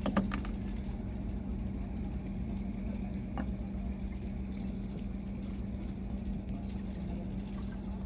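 A boat engine running steadily in the background, a low even hum. A few light clicks sound near the start and about three and a half seconds in.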